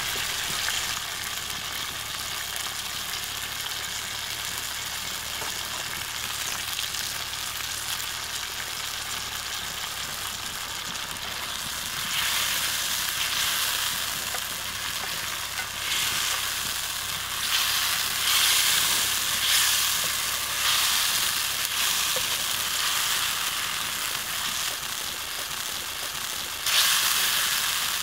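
Egg curry sizzling in a kadai, a steady hiss. From about halfway a wooden spatula stirs it, bringing repeated louder bursts of scraping and sizzle.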